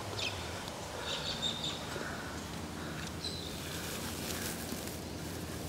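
Birds chirping, a few short high calls, over steady outdoor background noise.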